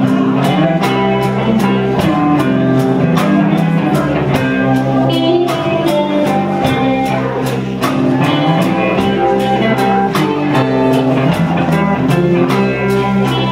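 A band playing an instrumental passage without vocals: guitar over bass and drums, with a steady beat.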